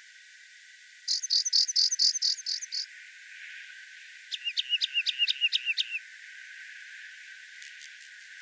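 Rock wren singing two phrases a second and a half apart, each a quick run of about eight to ten identical notes at some five notes a second: the first run higher and buzzier, the second of short down-slurred notes.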